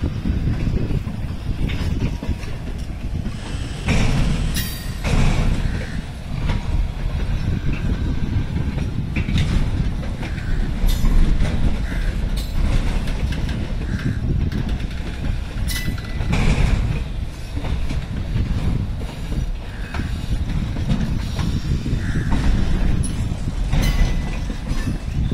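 Passing rake of old passenger coaches converted into NMG automobile-carrier wagons, their wheels rolling on the rails in a steady heavy rumble. Irregular sharp clacks come from the wheels over rail joints, with a few brief high squeaks.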